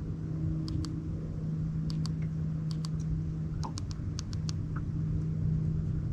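Electric trolling motor humming steadily while it holds the boat in position, with scattered light clicks over it.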